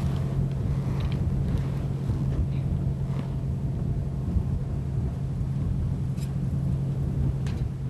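Diesel engine of a heavy earth-moving machine running steadily: a constant low hum over a rumble, which stops near the end.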